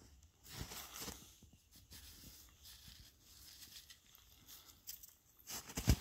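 Crunching and rustling in snow: footsteps and a cast deer antler being pulled up out of the snow, with a louder burst of crunching shortly before the end.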